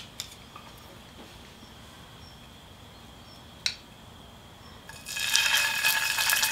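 A hot oiled frying pan, quiet apart from a single sharp click midway, then a thin-sliced pork belly roll wrapped around a blanched angelica-tree shoot is laid in. About five seconds in it starts to sizzle loudly in the oil.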